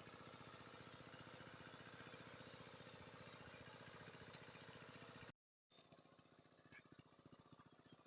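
Small engine running faintly and steadily, with rapid even pulses; the sound cuts out briefly about five seconds in and comes back quieter.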